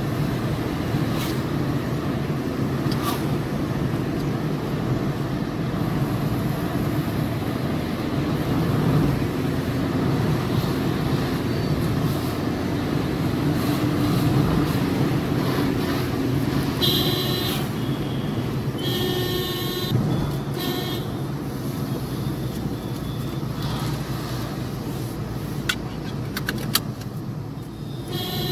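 Steady low road and engine noise of a car driving along a road, heard from inside the vehicle. A few short high-pitched beeps sound a little past halfway, and there are a couple of sharp clicks near the end.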